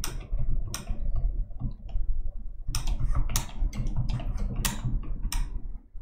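Typing on a computer keyboard: irregular keystroke clicks, coming more often in the second half.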